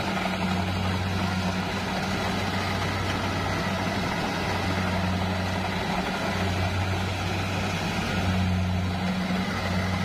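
Kubota rice combine harvester's diesel engine running steadily as the machine cuts and threshes rice. It makes a low, even hum that swells slightly now and then.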